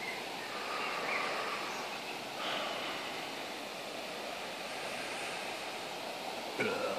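Steady hiss of a breeze rustling through the garden's trees and bushes, with faint bird chirps.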